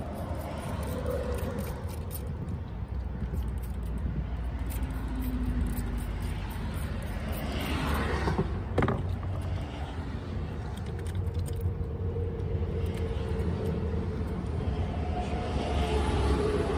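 Handheld trigger spray bottle squirting water into a cupped hand several times about halfway through, over a steady low vehicle rumble.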